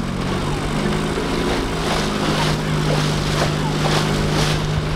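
Small outboard motor on a flat-bottomed fishing boat running steadily under way, a constant low hum, with hiss from water splashing along the hull swelling several times.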